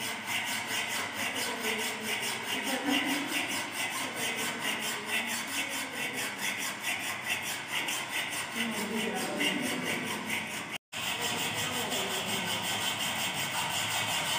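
Hand hacksaw cutting a steel window-frame bar, with rapid, regular back-and-forth rasping strokes. A brief break in the sound comes about three-quarters of the way in.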